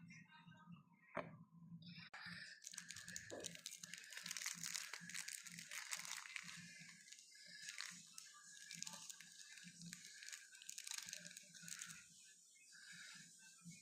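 Packaging being torn open and crinkled by hand, a dense run of crackling and rustling with many small clicks that starts about two seconds in and thins out near the end.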